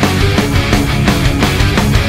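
Loud background music with a steady, driving beat.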